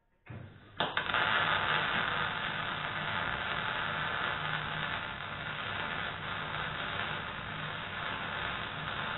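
MIG welding: the arc strikes about a second in and then runs as a steady hiss while a bead is laid on steel.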